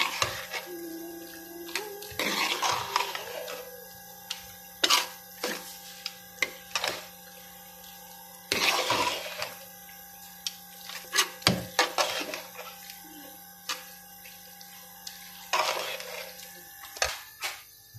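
Metal spoon knocking and scraping against a cooking pot as chopped vegetables are stirred: a string of sharp clanks with short bursts of scraping. A steady low hum runs underneath and stops shortly before the end.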